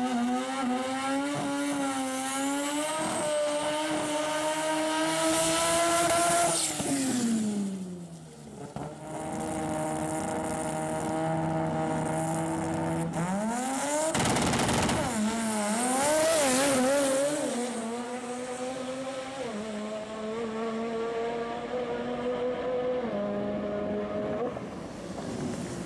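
Turbocharged 13B rotary engine of a Mk1 Ford Escort drag car, revving up with rising pitch at the start line, then dropping back and holding a steady note. About fourteen seconds in comes a loud burst as it launches, then the note wavers and steps as it pulls away down the strip.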